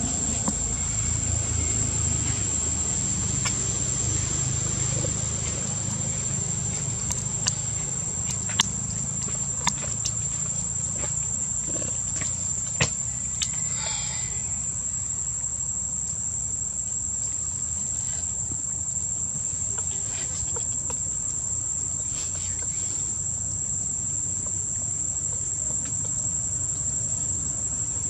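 Steady high-pitched insect drone over a low, continuous rumble like distant traffic, with a few sharp clicks around the middle.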